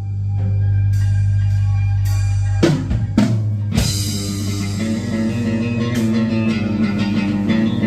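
Rock band music with electric guitar, bass and drum kit: a held low bass note opens it, a few sharp drum hits come in about two and a half seconds in, and the band then plays on together.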